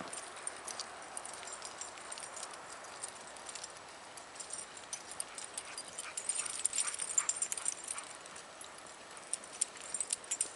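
Footsteps and dog paws crunching in fresh snow: a scatter of short crackling clicks, busiest about six to eight seconds in.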